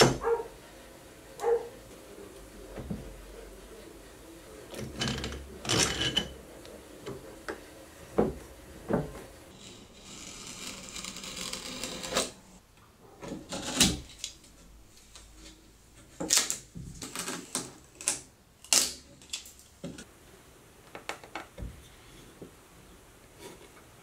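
Hand work on thin wood veneer: scattered clicks and knocks as a clamp and wooden blocks are handled, and a scraping hiss of a knife cutting the veneer about ten seconds in.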